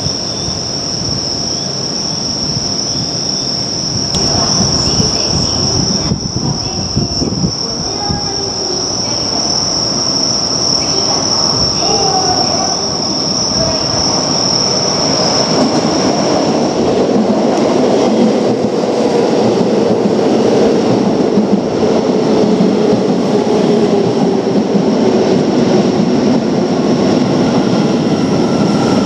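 Keio Line electric train running on the track, with a steady high-pitched squeal for about the first half, then a lower whine that slowly falls in pitch as the sound grows a little louder.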